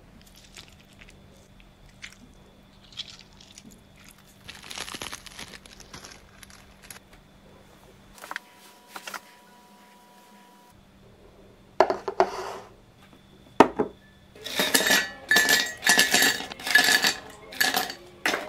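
Ice cubes clinking into a glass beer mug, a quick run of loud clinks with a ringing tail over the last few seconds, after a couple of sharp knocks. The first half holds only faint clicks and a short rustle.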